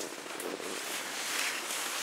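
Skis sliding and scraping over packed snow on a downhill run, a steady hiss with one brief click about half a second in.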